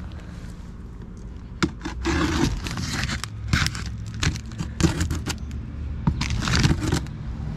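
Plastic stretch wrap being cut with a knife and torn off a cardboard box, crinkling and ripping in irregular bursts.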